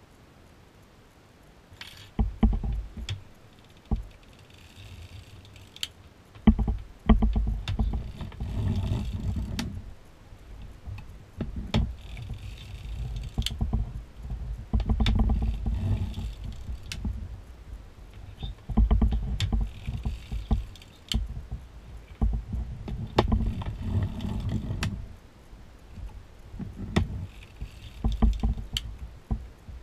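Hand-cranked NZAK circular sock knitting machine with a compound cylinder, its cam shell turning in short spells with pauses between. Each spell is a low rumble with the metal needles clicking and rattling through the cams.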